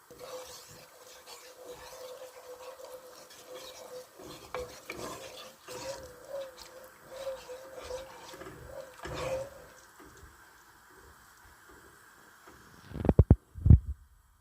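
A spoon stirring and scraping in a bowl, mixing food, for about ten seconds. Near the end come a few heavy, low thumps.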